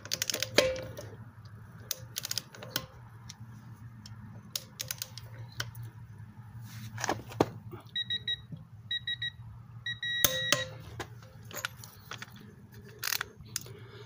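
A digital torque adapter beeps in short tones about half a second apart, ending in a longer beep, as a half-inch click-type torque wrench is pulled onto a lug nut. A sharp click comes with the long beep: the wrench breaking over at its set torque. Lighter clicks and knocks of the wrench and socket being handled come before.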